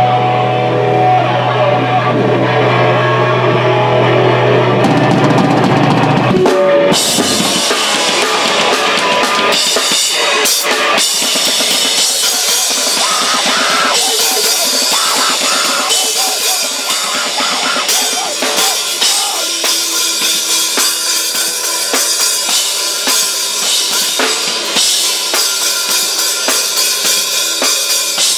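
Live rock band in a small room: an electric guitar rings on a steady held note through its amp for the first six seconds or so, then the drum kit and guitars come in at full volume and keep going.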